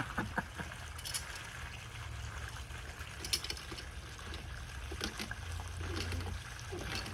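Artesian well water flowing up out of the cut well pipe in a steady trickle, at low pressure rather than a gusher, with a few faint clicks.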